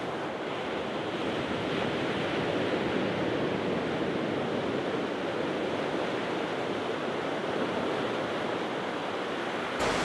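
Ocean surf breaking and washing onto a sandy beach, a steady rush of waves that swells slightly a couple of seconds in.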